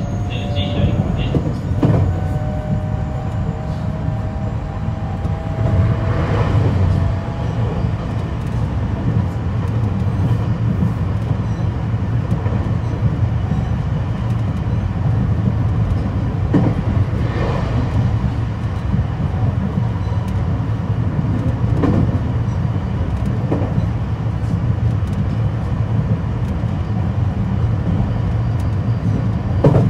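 Onboard running sound of a JR West 225 series 5100 subseries electric train with Toshiba IGBT inverter, heard from inside motor car MoHa 224-5136. A steady low rumble of wheels on rail runs throughout, with occasional knocks from rail joints. A faint whine fades out in the first few seconds.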